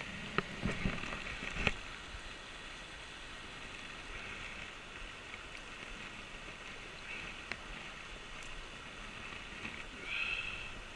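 Shallow mountain stream rushing over rocks, a steady wash of water, with a few sharp clicks in the first two seconds and a short louder burst about ten seconds in.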